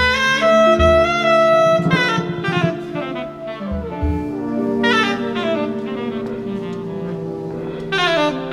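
Live jazz ensemble playing: horns led by saxophone sound long held chords that shift every few seconds. Drums play underneath with a few low thuds, near the start and about a second and four seconds in.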